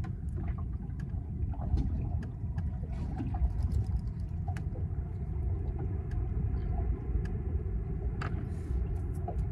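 Steady low rumble of wind buffeting the microphone, with scattered faint clicks from fishing line and hook being handled while a rig is tied.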